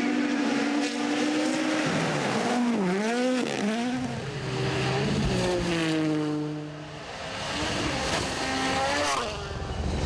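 Rally car engines revving hard, pitch jumping up and down quickly through gear changes about three seconds in. Then a car passes with its engine note sweeping down and fading, and another rises in pitch near the end.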